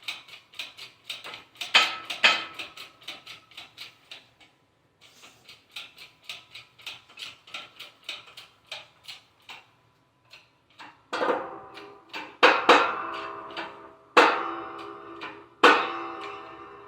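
Metal tapping, about three to four light taps a second, then past the middle several heavy hammer blows on steel, each ringing on as it fades: a carrier bearing being driven down onto a Chevy 10-bolt posi carrier until it sits level.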